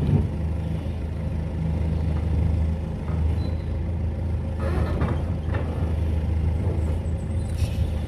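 Telehandler's diesel engine running steadily, its forks lifting a concrete floor slat, with a few brief noisy sounds about five seconds in.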